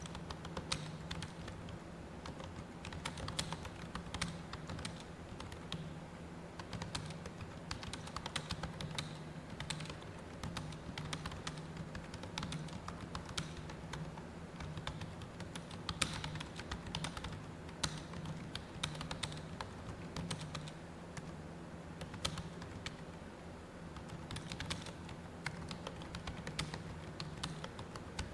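Continuous fast typing on a computer keyboard: rapid, irregular keystroke clicks with brief pauses, over a steady low hum.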